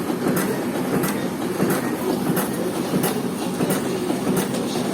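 A steady rumbling noise with sharp clicks every half second to a second.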